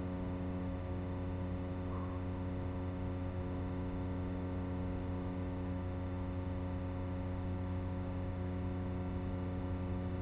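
Steady electrical hum with a buzz of even overtones, unchanging in pitch, over a light hiss: the noise floor of an analog FPV goggle video recording.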